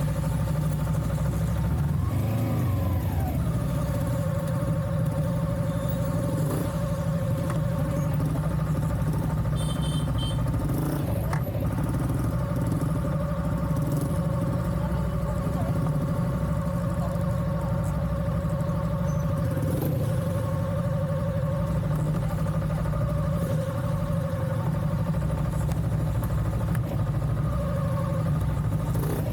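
Vehicle engine running steadily under way on a rough off-road track, with a heavy low rumble throughout. Its pitch drops about two to four seconds in, then holds level.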